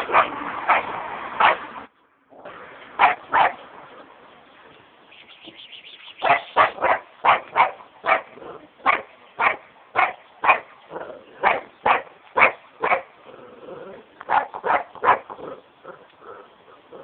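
A dog barking over and over in quick runs of short barks, about two to three a second, with a brief drop to silence about two seconds in.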